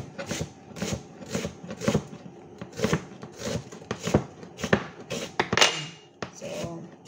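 Chef's knife chopping an onion on a cutting board: a steady run of sharp knife-on-board chops, about two a second.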